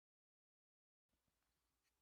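Near silence: the sound drops out completely, then returns as faint room tone with a few tiny ticks in the second half.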